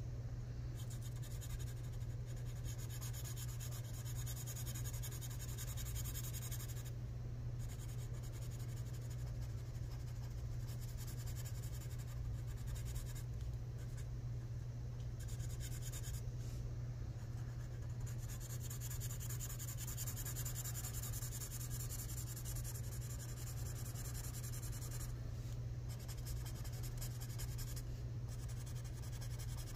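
Marker tip scratching across paper in stretches of colouring-in, pausing briefly every few seconds, over a steady low hum.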